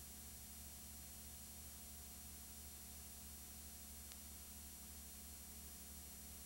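Near silence: a steady low hum and hiss with no sound of the race, and one faint click about four seconds in.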